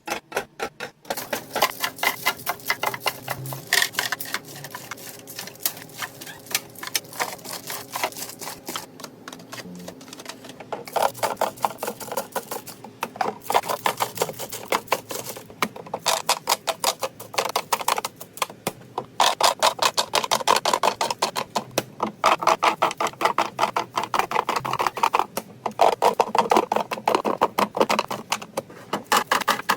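Rapid, dense run of light clicks and taps, many a second, from household items being handled and set into place while restocking, with louder stretches in the second half.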